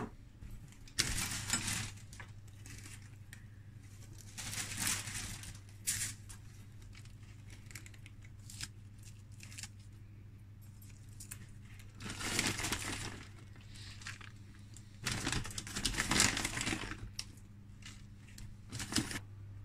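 Rustling and crinkling in several separate bursts as handfuls of toppings and shredded cheese are scattered over a pizza on baking paper, over a steady low hum.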